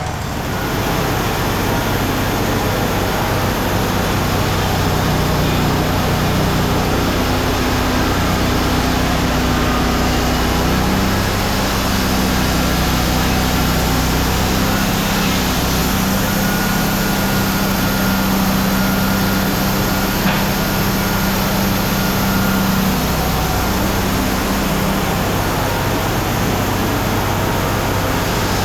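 Wood-Mizer LT35 band sawmill running steadily, its engine under way with a broad hiss of machinery. The engine note shifts about a third of the way through and again about three quarters through.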